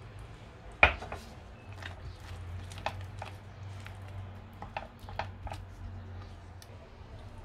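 Kitchen utensils and cookware being handled: a sharp knock about a second in, then scattered light clicks and taps, over a steady low hum.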